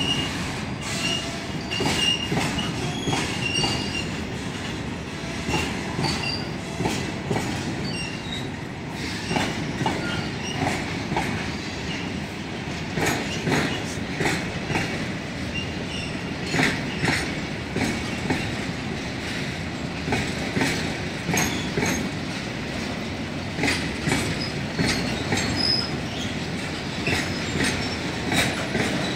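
Freight train of covered wagons rolling past: a steady rumble of steel wheels with repeated clickety-clack over the rail joints, and a thin wheel squeal in the first few seconds.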